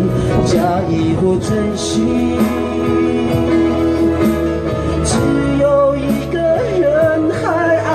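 A man singing a slow pop song over backing music with steady bass and cymbals, his voice sliding through ornamented runs near the end.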